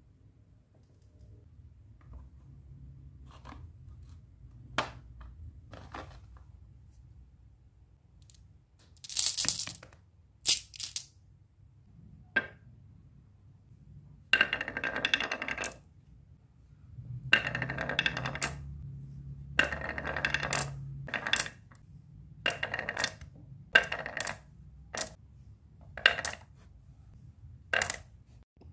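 Glass marbles rolling down a carved wooden slope, clacking against each other and the pine track. Single sharp clicks come at first; from about the middle on, longer runs of rolling rattle with a glassy ring alternate with sharp clacks.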